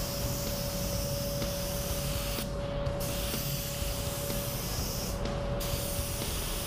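Gravity-feed compressed-air spray gun hissing as it sprays clear coat. The spray cuts out twice for about half a second as the trigger is released between passes, over the steady low rumble and a faint steady whine of the paint booth's air system.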